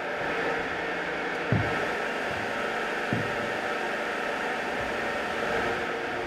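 Steady hiss and hum of workshop machinery, with two dull thumps about a second and a half in and again about three seconds in.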